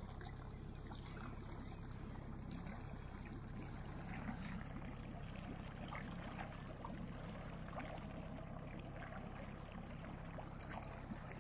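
Faint, steady hum of a boat motor pushing the boat along at trolling pace, with water trickling and lapping along the hull.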